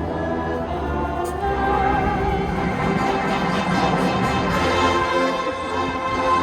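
Marching band playing a slow piece in sustained, held chords.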